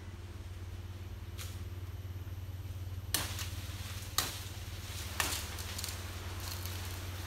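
A blade, likely a machete, chopping into nipa palm stems: three sharp chops about a second apart, after a fainter knock.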